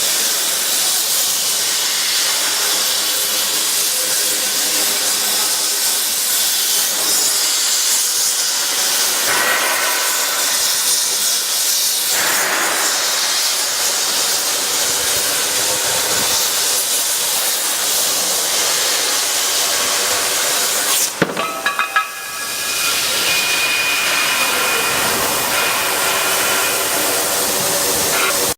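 Hypertherm plasma torch on a CNC pipe-cutting machine, cutting metal with a loud, steady hiss. About 21 seconds in the hiss breaks off with a few sharp clicks, then comes back.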